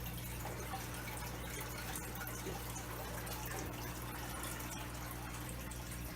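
Steady trickling and dripping of aquarium water, with a low, steady hum underneath.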